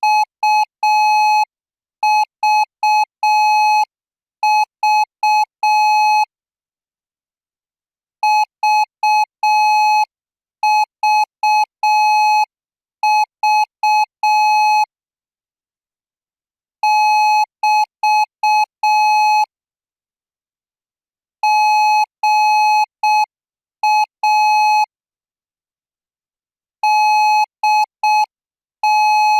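Thai Morse code practice signal sent at 10 words per minute: a single steady beep tone keyed on and off in short and long elements, grouped into characters with pauses of a second or two between groups.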